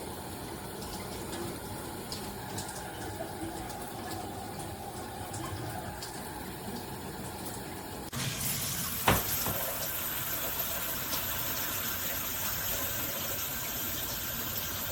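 Water spraying from a handheld shower head in a steady hiss; about eight seconds in the spray turns louder and hissier, and a sharp click follows about a second later.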